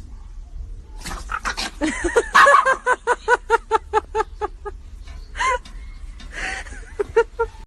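An animal giving a rapid run of short, pitched calls, about five a second, with a few more scattered calls near the end.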